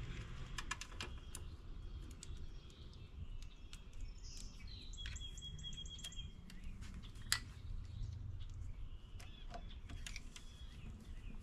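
Light, irregular clicks and ticks of a battery cable's eyelet terminals and screw being fitted and threaded by hand onto the battery's negative terminal. Birds chirp in the background, with a short high chirp about halfway through.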